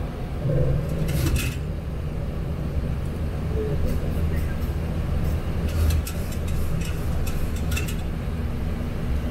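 Boeing 737-800 cockpit noise in flight: a steady low rumble of airflow and engines, with scattered sharp clicks and ticks, a cluster about a second in and more in the second half.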